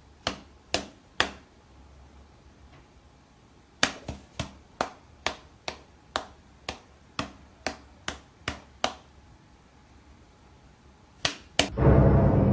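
A series of sharp taps or knocks: three in the first second or so, then after a pause a steady run of about a dozen at roughly two a second, and two more near the end. Music comes in just before the end.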